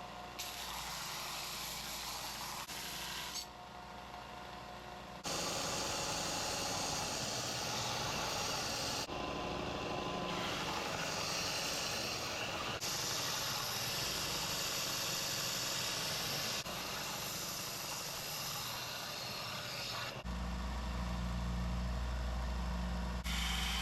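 Power sanding on a steel knife blade cut from an old mower blade: a steady abrasive hiss over a motor hum, in a string of short clips that switch abruptly from one to the next. In the last few seconds a steady low machine hum takes over.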